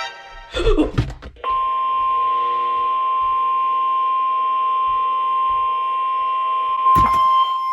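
NOAA Weather Radio 1050 Hz warning alarm tone, a single steady beep-like tone that starts about a second and a half in and holds, received over a radio with faint hiss and hum. It marks the weekly test of the Warning Alarm System. A sharp crackle comes near the end.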